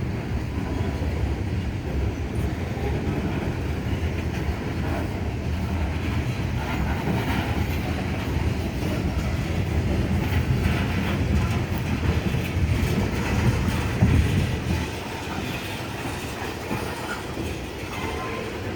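Cars of a long CSX mixed freight train rolling past, a steady rumble with the wheels clattering over the rail joints; it swells for a moment about 14 seconds in, then eases a little.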